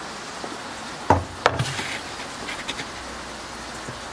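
A baking tin of freshly baked bread, just out of the oven, being handled and set down: a dull knock, then a sharper clack about half a second later, then a few light clicks.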